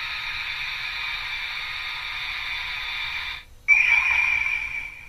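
DX Kamen Rider No. 2 'Typhoon' transformation belt toy playing its transformation sound effect through its small speaker: a steady hissing whoosh with electronic tones, a brief break about three and a half seconds in, then a loud burst with a high ringing tone that fades out.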